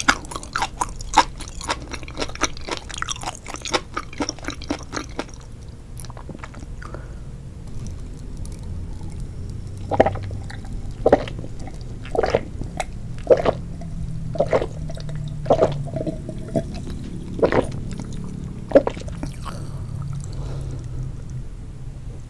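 Wet chewing and mouth clicks for the first few seconds, then a drink from a glass swallowed in a series of gulps, about one a second.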